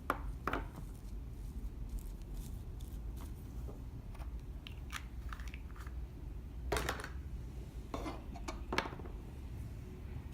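Slime being mixed and worked, giving scattered sticky clicks and small crackling pops. A few louder squelches come right at the start and again about two-thirds of the way through.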